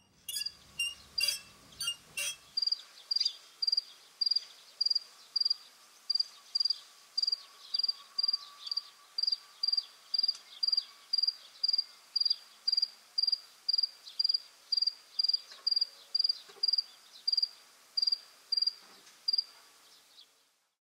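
A cricket chirping steadily in a regular rhythm of about two short high chirps a second, after a few sharp clicks at the start.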